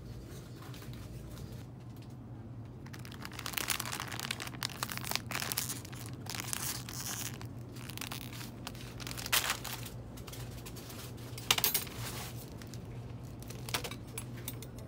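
Plastic snack packets crinkling as they are handled and dropped into a plastic shopping basket. The crinkling comes in bursts, heaviest a few seconds in, with a few sharper crackles later, over a steady low hum.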